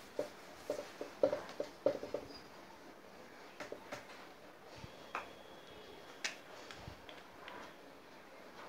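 Whiteboard being wiped with a duster: a quick run of short rubbing strokes over the first two seconds, then a few scattered light clicks and taps.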